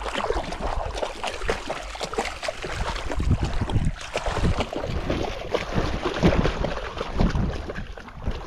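Water sloshing and splashing in irregular strokes as someone wades through it, with wind rumbling on the microphone.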